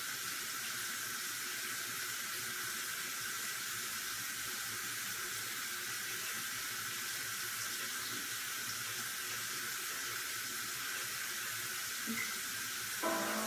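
Bathroom sink tap running, a steady hiss of water; music starts up near the end.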